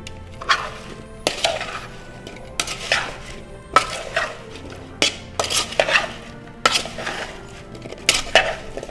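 A metal spoon scraping and clinking against a mixing bowl as chopped potatoes are tossed in olive oil and rosemary, in uneven strokes, roughly one or two a second.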